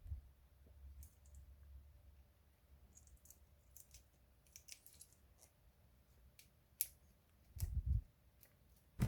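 Faint scraping and clicking of a Swiss Army knife awl boring a hole through a wooden stick toggle, with a sharper click and a few low handling thumps near the end.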